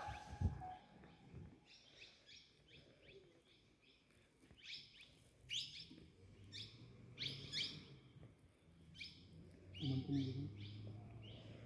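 Forest birds chirping over and over, many short high calls, some sliding down in pitch. A thump comes just at the start, and a low hum rises from about six seconds in, loudest around ten seconds.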